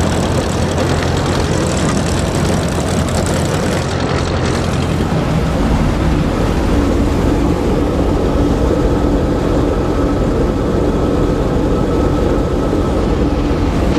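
Gleaner E combine running steadily under load while harvesting corn, a loud engine and machinery drone with a higher steady tone joining about six seconds in.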